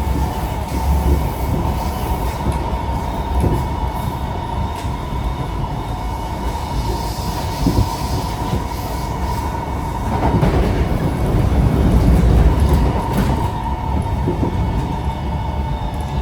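Inside a Kawasaki–CSR Qingdao Sifang C151A metro car on the move: steady running rumble with occasional wheel clicks, under a continuous steady whine that is typical of the car's air-conditioning and sounds like an airplane. The running noise swells for a few seconds past the middle.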